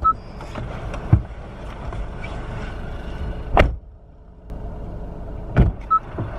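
Car cabin with a steady low engine rumble, the car left running. A car door shuts with a loud thunk a little over halfway through and thunks again about a second before the end. A short beep sounds right at the start and again near the end.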